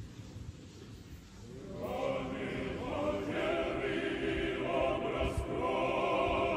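A choir singing chant, several voices together, fading in about a second and a half in and then holding steady.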